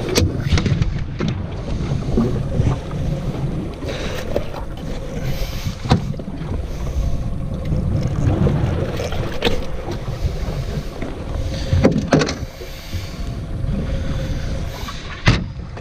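Wind buffeting the microphone and sea water washing against a small fishing boat's hull, with a faint steady hum underneath. A few sharp knocks sound on deck, one about six seconds in and two near the end.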